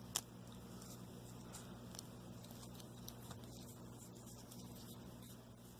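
A single sharp click from a Snap-on ratcheting wrench's reversing lever being flipped, then a few faint handling ticks over a steady low hum.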